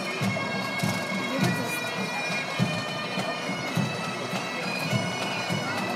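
Bagpipes playing, their drones and chanter sounding as steady held tones, over a regular low beat.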